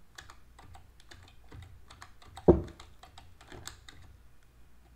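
Computer keyboard keys clicking in irregular runs of keystrokes, with one much louder thump about two and a half seconds in.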